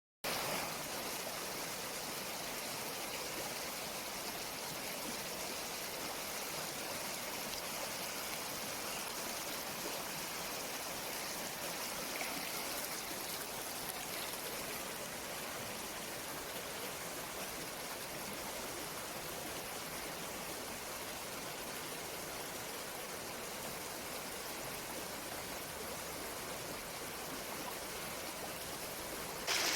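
Stream water flowing steadily, with a sudden step up in loudness just before the end.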